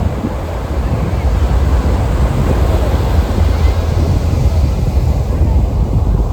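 Ocean waves rolling and breaking in a steady rush of surf, swelling around the middle and easing off near the end, with wind buffeting the microphone.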